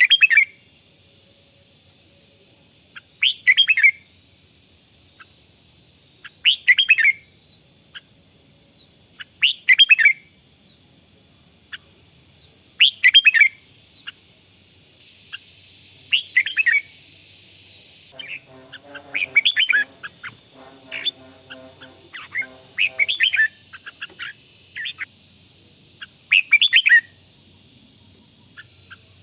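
Red-whiskered bulbul singing, short loud song phrases repeated about every three seconds and coming faster near the end, over a steady high whine. A lower chattering sound joins in about two-thirds of the way through.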